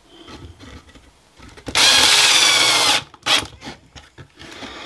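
Drill/driver driving a coarse-thread pocket hole screw into a wooden board: one run of the motor lasting a little over a second, about two seconds in, its whine sagging slightly under load, followed by a couple of short blips of the trigger as the screw is set home. Faint rubbing and handling of the board comes before it.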